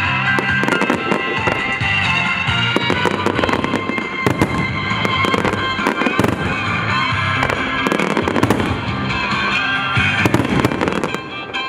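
Aerial fireworks bursting and crackling in rapid, dense succession, over loud music played with the display.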